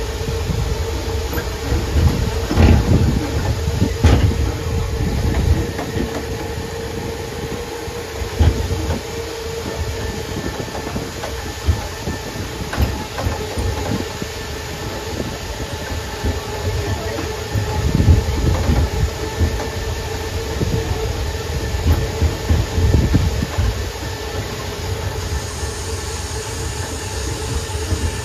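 Open boardwalk tram car rolling along, heard from a seat on board: a steady motor hum over a low rumble, with irregular thumps as the wheels roll over the wooden boardwalk planks.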